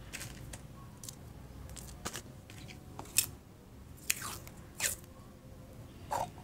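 Decorative sticky tape and a thin plastic cup being handled: a string of short, irregular crinkling crackles, the sharpest about three and five seconds in.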